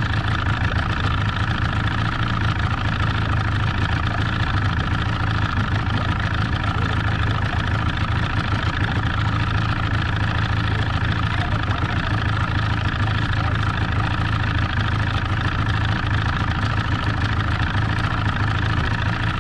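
Boat motor running steadily as the boat travels across the lake.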